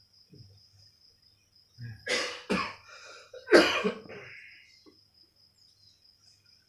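A man's hard cough, three coughs in about two seconds, the last the loudest. It is the persistent, unrelenting cough he is being treated for.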